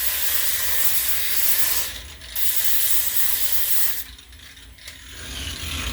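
Angle grinder with a sanding disc grinding down a wooden axe handle, a steady hissing rasp of abrasive on wood. It eases off briefly about two seconds in, and again for about a second near the end before picking up.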